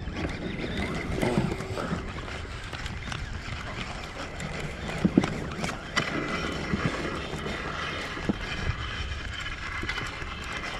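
Steady low rumble and water noise aboard a small fishing boat, with scattered knocks and clicks; the sharpest knock comes about five seconds in.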